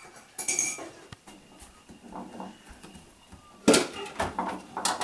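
Clatter and knocks of things being handled in an open refrigerator: a short rattle just under half a second in, then a louder burst of knocks and clinks from just before four seconds on.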